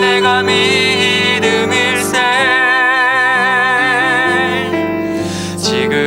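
Gospel hymn music: a sustained melody line with vibrato over a steady accompaniment, the notes changing every second or so.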